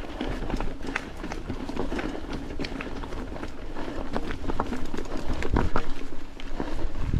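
Rockrider XC 100 S mountain bike climbing a steep rocky trail: tyres crunching over stones, with irregular clicks, knocks and rattles from the bike.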